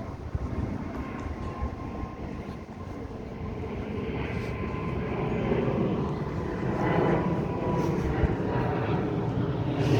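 Low engine rumble growing steadily louder over a few seconds, then holding, as of a vehicle or aircraft approaching.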